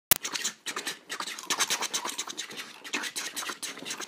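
A sharp click, then quick irregular scratching and rustling strokes.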